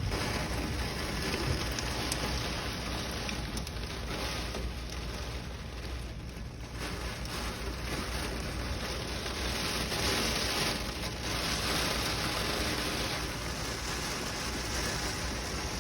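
Steady rushing noise with no clear tone or rhythm, dipping about six seconds in and swelling again around ten seconds.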